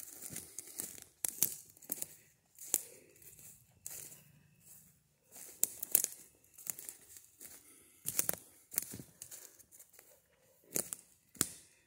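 Footsteps crunching through dry leaf litter on a forest floor: brisk, irregular steps with rustling between them.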